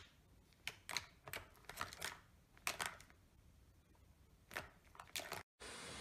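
Plastic ball-track cat toy clicking and rattling as a kitten paws at it and the balls knock around in the tracks: about nine short, irregular clicks.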